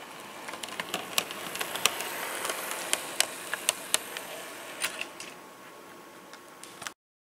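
Model train running along sectional track: the wheels click sharply over rail joints and points while the locomotive's running noise builds as it passes close, then eases off about five seconds in.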